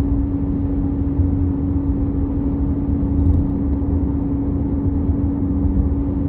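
Acura car being driven, heard from inside the cabin: a steady, even hum at one pitch over low road rumble. It is a noise that the driver hears only while the car is moving, not when it is stopped.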